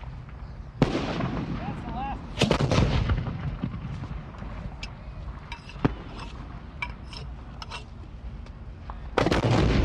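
Rifles firing on an outdoor range: a series of single shots a few seconds apart, each with a trailing echo, the loudest about two and a half seconds in, with fainter, more distant shots in between.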